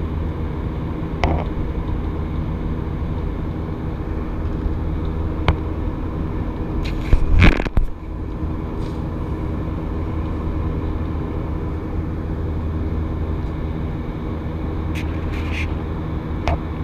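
Airliner jet engines droning steadily as heard inside the cabin in flight, with a strong low hum. About seven seconds in comes a louder burst of scraping and knocking as the camera is moved against the window, and a few lighter clicks come before and near the end.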